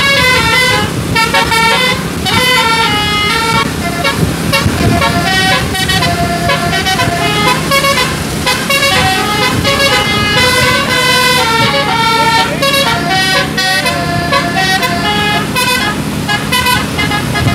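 A bus's telolet musical air horn playing a quick, continuous tune, its notes changing pitch several times a second, with a steady low hum underneath.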